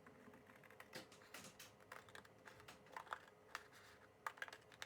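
Faint scissors snipping through paper card stock: a string of irregular short clicks and snips.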